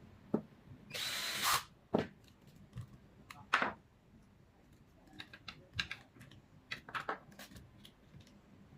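Parts of a glass butter churn being handled and fitted together: scattered light clicks and knocks, with a brief scrape about a second in and a run of small clicks near the end.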